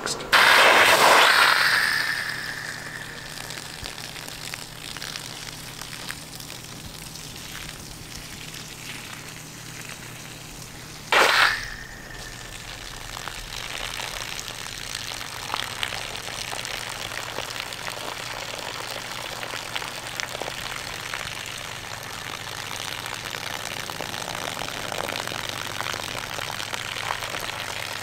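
Garden hose running wide open, a strong stream of water splashing onto the lawn in a steady hiss. Two loud, sudden rushes break in, one right at the start and one about eleven seconds in.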